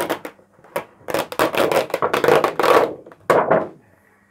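A thick acetate sheet being peeled off an adhesive cutting mat, with a run of sharp crackles and rustles that stops near the end.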